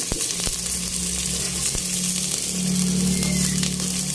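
Sliced red onions sizzling in hot oil in a stainless steel pot just after being added for sautéing, with a few clicks from a metal spoon. A steady low hum runs underneath.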